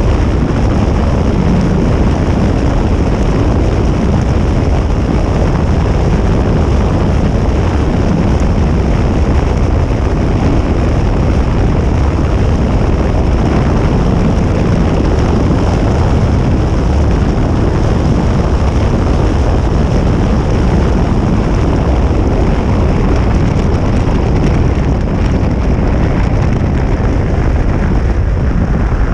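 Steady, loud vehicle rumble and rushing noise that holds even, with no revving or change in pitch.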